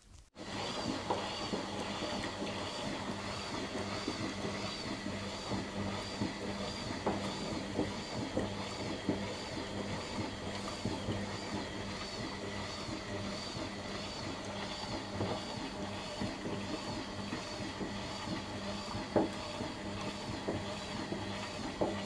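Indesit front-loading washing machine spinning: the drum motor runs with a steady hum and a high whine that wavers up and down, with a few light knocks. It starts abruptly just after the start.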